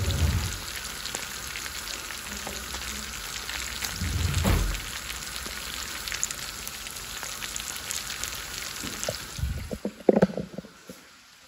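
Pieces of meat frying in hot oil in a pan: a steady sizzle with fine crackling pops, broken by a couple of dull thumps. About ten seconds in come a few knocks, and the sizzle drops away.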